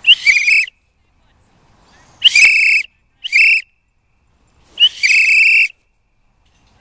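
A dog-training whistle blown in four loud blasts as a recall signal calling a dog back. Each blast holds one high pitch, and the last one is the longest.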